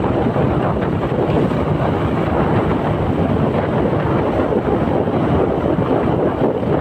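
Steady wind rush over the microphone of a moving motorcycle, with the bike's engine running underneath.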